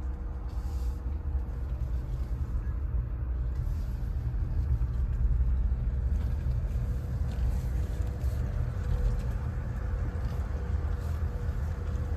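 A Ford Maverick pickup being driven: a steady low rumble of road and drivetrain noise with a faint steady hum.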